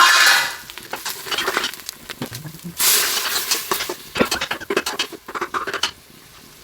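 A spoon stirring and scraping a frying onion-and-spice masala in an oiled cooking pot, with sizzling; the strokes come as irregular scrapes and clicks, with louder bursts near the start and about three seconds in, and thin out near the end.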